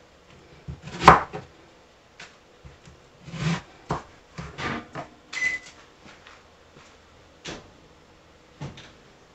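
Chef's knife cutting a red onion on a plastic cutting board: irregular knocks of the blade against the board, the loudest about a second in. A brief high-pitched tone sounds about five and a half seconds in.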